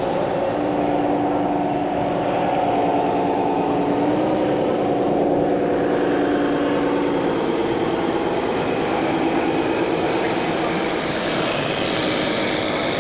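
A small motor running steadily with a whine, wavering briefly in pitch about four seconds in and dropping slightly a few seconds later.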